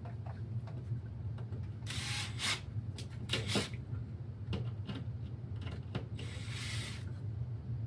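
Rubbing and scraping from hands working drain pipe fittings and a clamp, in three short bursts with a few clicks, over a steady low hum.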